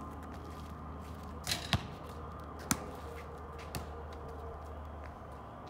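Basketball bouncing on an asphalt driveway and smacking into players' hands: four sharp thumps, two close together about a second and a half in, then two more about a second apart.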